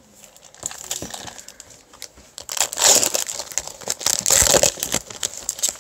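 Foil wrapper of a Pokémon card booster pack crinkling and being torn open, loudest in a run of rustling bursts from about halfway through.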